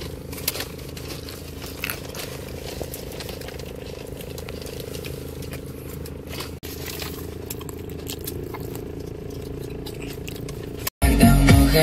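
Steady hum of a car heard inside its cabin, with small crackles and rustles from the sandwich being handled over its paper wrapper. About eleven seconds in the sound cuts out for an instant and loud hip-hop music starts.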